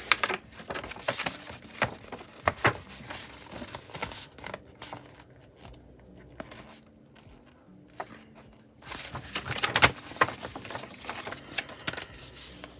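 Paper rustling and crinkling as a folded album poster is handled and unfolded, in dense bursts with a quieter stretch around the middle.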